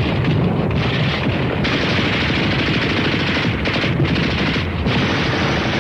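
Heavy, continuous gunfire: rapid machine-gun fire mixed with rifle shots, one dense unbroken crackle.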